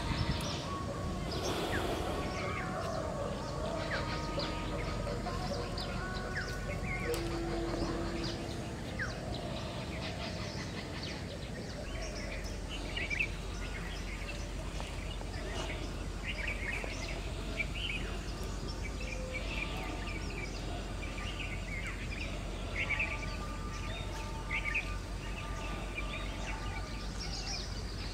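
Birds chirping in short, scattered calls over steady outdoor background noise.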